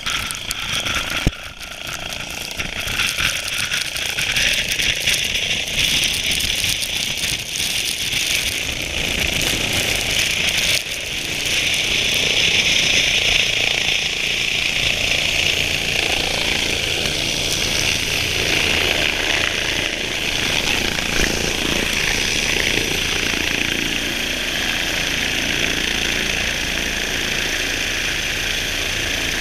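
Rescue helicopter's rotor and turbine running close by as it approaches and hovers. It grows louder about ten seconds in, then holds steady with a high turbine whine over a low rotor rumble. A single sharp knock comes just after the start.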